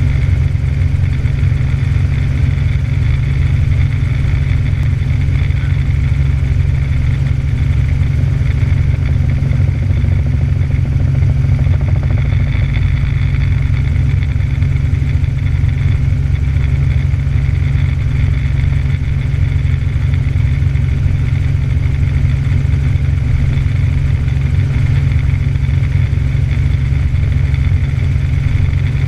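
Light helicopter's engine and rotor in steady flight, heard from inside the cabin: a loud, deep, unchanging drone.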